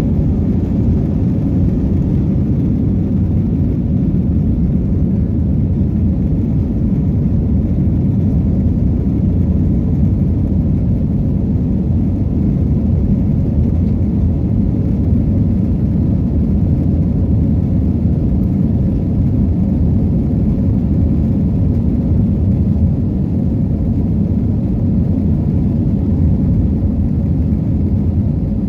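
Cabin noise of an Airbus A321 at takeoff thrust: a loud, steady low rumble of the jet engines and rushing air through the end of the takeoff roll, liftoff and initial climb.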